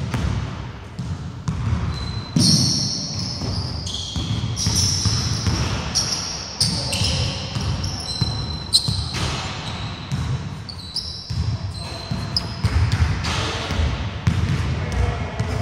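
Basketball pickup game on a wooden gym court: the ball bouncing and players' feet thudding, with many short high sneaker squeaks on the wood floor.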